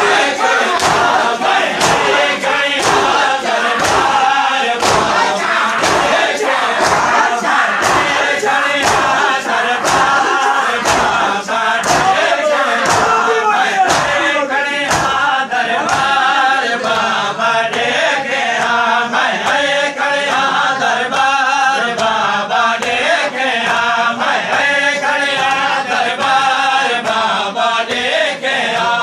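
Crowd of men chanting a noha, a Shia lament, in unison, over the rhythmic slaps of matam: hands beating on chests in a steady beat a little faster than once a second.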